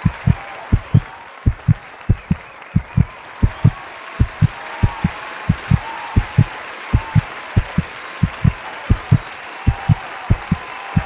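Heartbeat sound effect: paired low thumps, lub-dub, repeating steadily at about one and a half beats a second.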